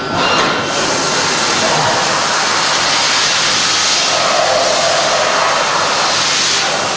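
CNC machine tool cutting metal: a steady, loud rushing hiss with faint high whining tones running through it.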